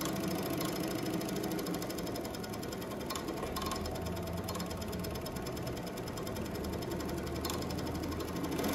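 JUKI MS-1190 double-needle chain stitch industrial sewing machine running at a steady speed, stitching a plain seam through cotton shirt fabric with a fast, even mechanical rattle of the needle bar and feed.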